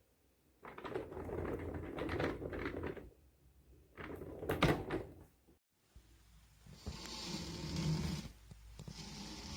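Handling noises: objects being shifted, rubbed and knocked in stretches of a couple of seconds, with a sharp clack about four and a half seconds in.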